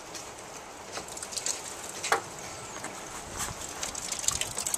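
Steady rain pattering, with scattered sharp ticks and taps.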